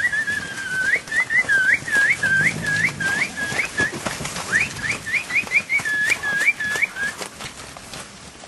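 A person whistling: a held note, then quick runs of short swooping notes, about two a second, with a short break about four seconds in. The whistling stops about seven seconds in.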